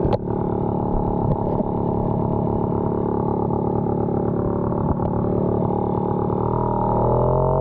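Puch Maxi moped's small single-cylinder two-stroke engine running steadily; near the end its note shifts lower and a little louder.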